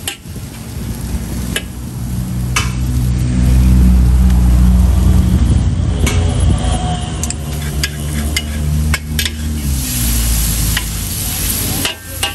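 Mee goreng and eggs frying in a wok: oil sizzling while a metal spatula stirs and scrapes, with sharp clinks of the spatula on the wok now and then. A low rumble runs underneath and is loudest in the middle.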